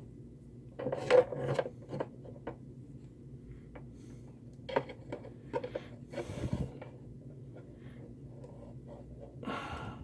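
Handling noises from working with tweezers on wires inside a plastic filament-dryer housing: irregular small clicks and taps with a few short scrapes and rubs, the loudest about a second in. A faint steady low hum sits underneath.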